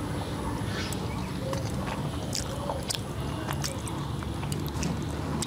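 Eating by hand: fingers mixing rice and egg curry on a steel plate, with chewing and small scattered clicks over a steady low background hum.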